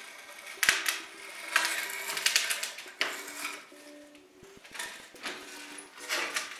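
Old wooden door-frame jamb being pulled loose from a crumbling plaster wall: irregular bursts of cracking, scraping and rattling wood and loose debris, loudest about half a second in and again from about one and a half to two and a half seconds in.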